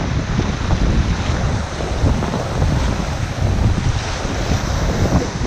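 Rushing whitewater of a river rapid around a raft, with wind buffeting the action camera's microphone in a loud low rumble.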